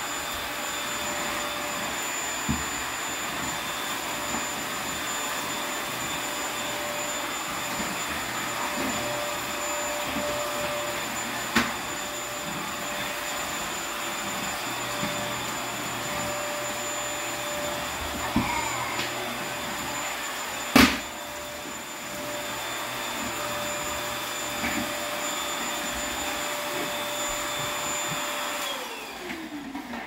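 Corded electric stick vacuum running steadily, a high whine over a rushing hiss, with a few sharp clicks along the way, the loudest about two-thirds through. Near the end the motor is switched off and its whine falls as it spins down.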